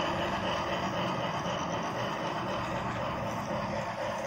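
Battery-powered toy trains running around plastic track, giving a steady mechanical whirring and rattling from their small motors and wheels.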